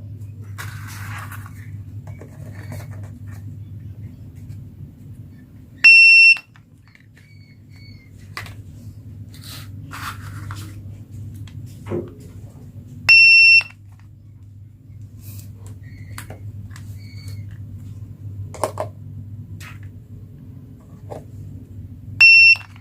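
Toy cash register beeping three times, each a short steady electronic tone about half a second long, several seconds apart. Light plastic clicks and handling noises fall between the beeps, over a low steady hum.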